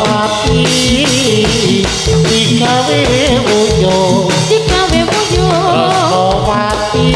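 Javanese jathilan dance music: a steady drum beat and tuned percussion under a wavering melody with singing, playing without a break.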